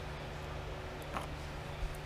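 Steady low hum of room tone, with two small clicks, one about a second in and one near the end.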